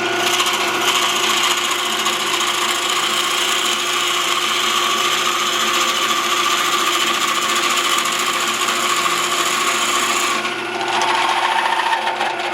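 A 9/16-inch spade bit boring into a spinning oak blank on a wood lathe, a steady scraping cut over the lathe's motor hum. The cutting noise drops away about ten seconds in while the lathe keeps running.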